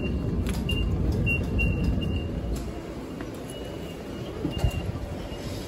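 Ambience in a train station ticket-gate area: a steady low rumble with short high chirps, several in the first two seconds and a few more later, and a single sharp knock about four and a half seconds in.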